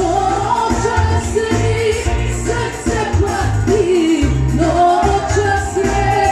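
A woman singing into a hand microphone, her amplified voice carrying the melody over backing music with a pulsing bass line.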